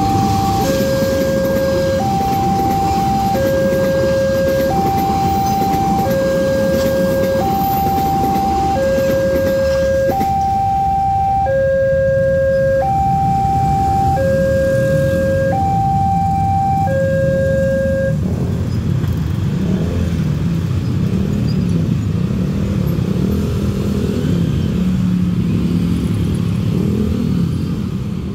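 Railway level-crossing alarm sounding a two-tone warning, a low and a higher tone alternating about every three-quarters of a second, close to the sound of the latest Wantech crossing alarm, over the rumble of a passing passenger train. The alarm stops about two-thirds of the way through, and motorcycle engines rev as the waiting traffic moves off.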